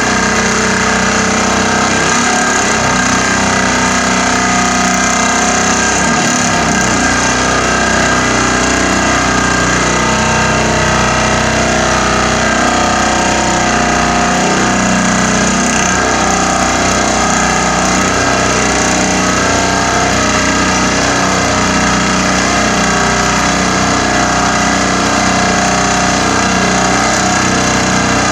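Vibratory pile hammer driving a rolled-steel profile pile into the ground: a loud, steady mechanical drone made of many layered tones, with no separate blows.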